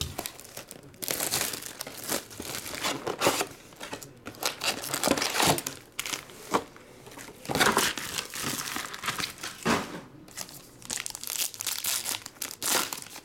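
Plastic wrapping and foil trading-card packs crinkling and tearing in irregular bursts as a card box is unwrapped and opened. Near the end a foil pack is torn open.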